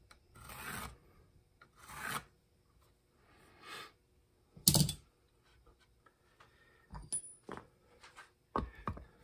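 Pencil scratching along a metal combination square on a wooden board in two or three strokes, then a sharp knock about halfway through as the metal square is set down. Several shorter clunks and clicks near the end as a cast-iron bench vise is set onto the board.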